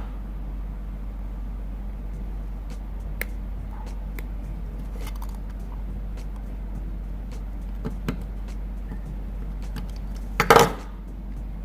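A blade slitting and working the insulation off a thick gauge 6 aircraft wire: scattered small clicks and scrapes, with one louder short scrape about ten and a half seconds in, over a steady low background hum.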